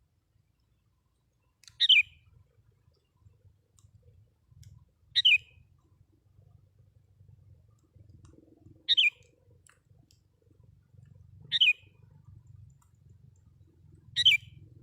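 Sooty-headed bulbul calling: five short, downward-sliding notes, one about every three seconds, over a faint low rumble.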